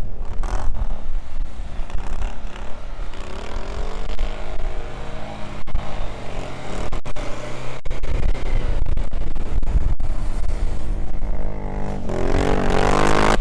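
Suzuki Jimny's 1.3-litre four-cylinder petrol engine revving up and down as it pushes through deep snow. Near the end it revs hard, rising in pitch.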